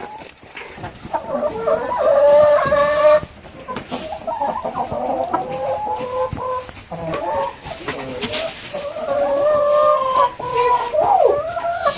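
Chickens clucking and squawking in a run of loud, drawn-out calls.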